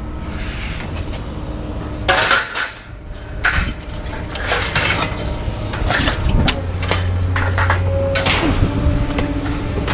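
Scrap metal being unloaded, pieces clanking and clattering as they are tossed down, in a string of separate ringing metallic hits over a steady low mechanical hum.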